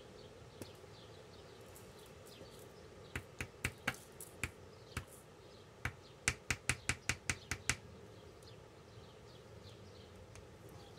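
Small plastic pot of sequins tapped and shaken to tip the sequins out onto a card. A few scattered light clicks, then a quick run of about ten clicks, around six a second, a little past the middle.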